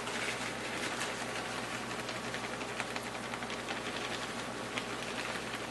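Mushrooms and vegetables sizzling steadily in a frying pan, a constant crackling hiss.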